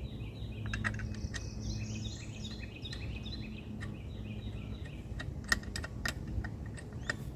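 A songbird singing a long run of quick repeated high notes, with scattered sharp clicks over a steady low hum.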